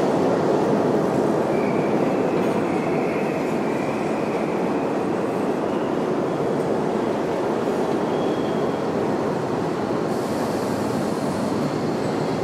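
Subway train running along the track with a steady, dense rush of noise, easing slightly toward the end. Faint high wheel squeals come and go over it.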